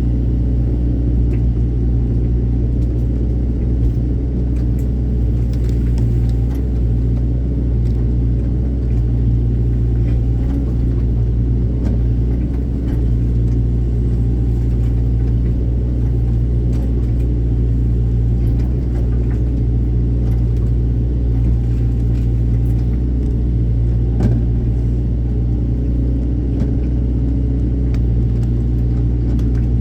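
Excavator's diesel engine running at a steady low rumble, with faint clicks now and then.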